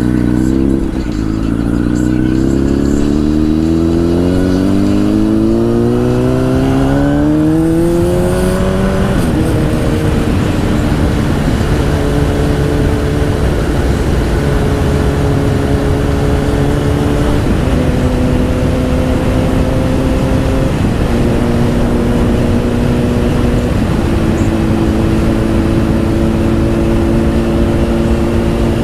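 Honda CBR1000 sport bike's engine through a Two Brothers exhaust, revving up smoothly for about nine seconds, then dropping in pitch and holding a steady cruise with a few small changes in pitch, under a constant rush of wind noise.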